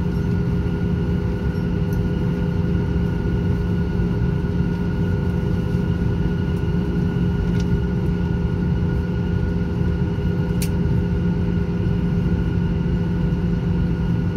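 Boeing 737-800's CFM56 jet engines running at low thrust as the plane taxis, heard inside the cabin: a steady rumble with a steady whine over it.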